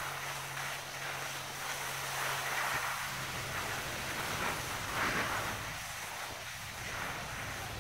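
Skis sliding and scraping on packed snow, coming in swells as the skier moves downhill, with wind rushing over the phone's microphone. A faint low steady hum runs under it for the first three seconds.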